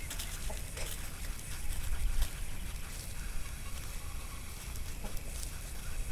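Low wind rumble on the microphone, with a few faint crackles of dry leaves under a cat's paws.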